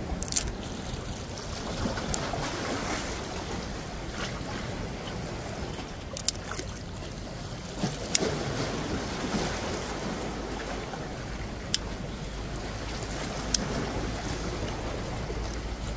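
Wind buffeting the microphone over waves lapping against shoreline rocks, with a handful of short sharp clicks as dry kindling sticks are snapped and laid on charcoal in a tin.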